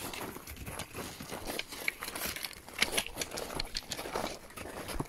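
Footsteps crunching and scraping over loose volcanic rock, an uneven run of short crunches.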